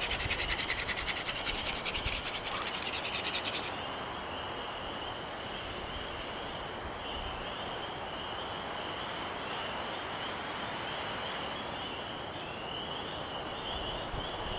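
Wooden hand-drill spindle spun between the palms on a hearth board to raise a friction-fire ember, rubbing and scratching. A fast, high rasping stops a few seconds in, and a steady high trilling chorus carries on behind.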